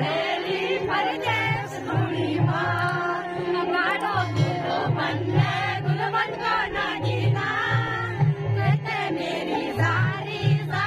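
A folk song sung by women's voices over a steady, repeating bass rhythm.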